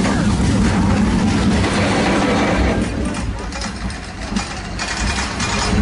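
Arrow Dynamics steel looping roller coaster (Vortex) train running along the track at speed: its wheels rumble on the steel rails, with wind rushing across the microphone. The noise eases for a moment around the middle, then builds again.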